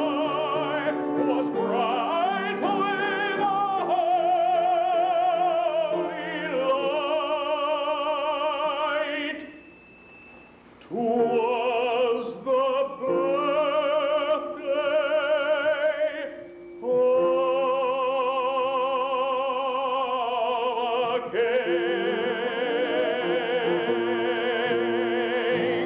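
Classical tenor voice singing a sacred Christmas song with strong vibrato over piano accompaniment. There is a short break about ten seconds in, and the song ends on a long held note.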